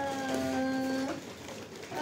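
A child's voice holding a long, steady sung note. It breaks off a little after a second in.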